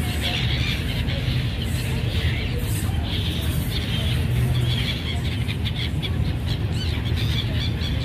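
Flock of gulls calling, many overlapping squawks and squeals, over a steady low rumble.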